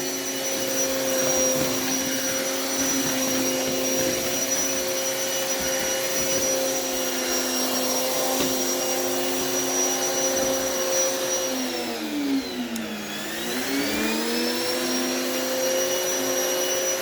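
A central vacuum system runs steadily, drawing air through a long hose: a constant whine of several held tones over a rushing hiss. About twelve seconds in, the pitch sags and swings back up over a couple of seconds.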